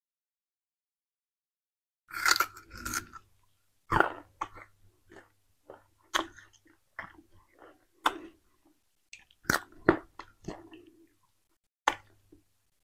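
Crunching and chewing of peeled sugarcane pieces, close to a clip-on microphone: a sharp crunch every second or two with softer crackling between, starting after about two seconds of silence.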